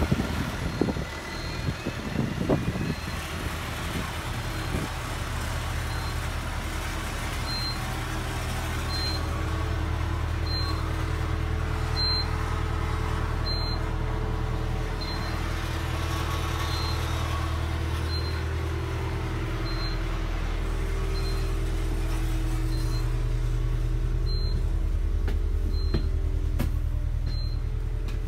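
A stationary New Routemaster double-decker bus with a diesel-electric hybrid drivetrain, idling with a steady low hum. A short, faint high beep repeats about every second and a half.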